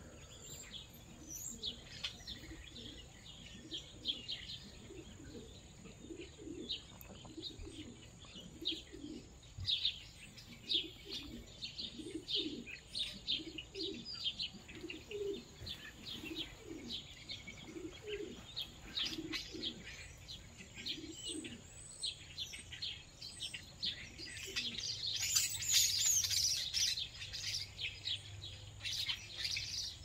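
Many small birds chirping in quick short notes, with pigeons cooing low and repeatedly, about once a second, through the middle. The chirping thickens into a louder, busier flurry about three quarters of the way through.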